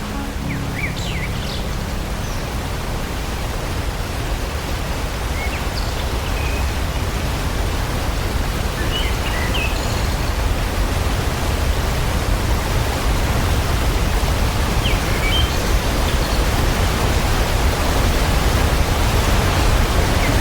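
Steady roar of a large waterfall, heaviest in the low end and slowly growing louder. A few short, high chirps come and go over it.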